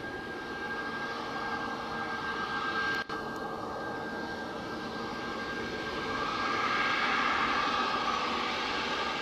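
Boeing 737 MAX 8 with CFM LEAP-1B turbofans at taxi power as the airliner turns on the runway, giving a steady jet whine over engine rush. The sound cuts out for an instant about three seconds in, and the engine noise grows louder from about two-thirds of the way through as the jet swings side-on.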